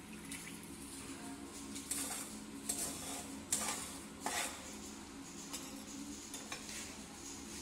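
Stainless steel spoon stirring oil into dry semolina in a non-stick frying pan, scraping and knocking against the pan several times between about two and four and a half seconds in. A faint steady low hum runs underneath.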